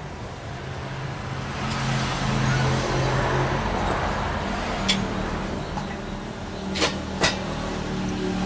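A motor vehicle passing, its engine hum and road noise swelling about two seconds in and then easing off. Three sharp clinks of a spoon against a plate come in the second half.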